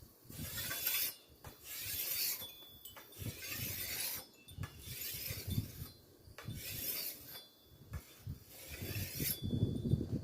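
Machete blade being drawn by hand across the coarse side of an oiled sharpening stone: about six rasping strokes, one every second and a half or so, with short pauses between them.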